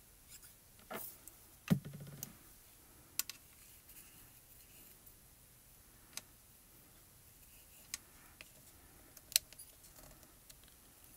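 A handful of sharp, scattered clicks and taps as metal craft tweezers and a glue bottle are handled against cardstock on a craft mat, the loudest a knock about two seconds in.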